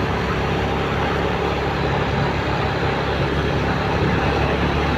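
Steady engine and road noise from an old motorcycle riding along a city street in traffic, with no change through the stretch.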